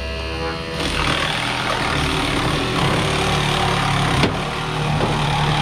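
An engine running steadily, getting louder with added hiss about a second in, with one sharp snap about four seconds in.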